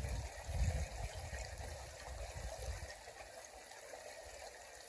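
Creek water trickling and flowing steadily over a gravel bed, with low rumbling handling noise on the microphone for the first three seconds.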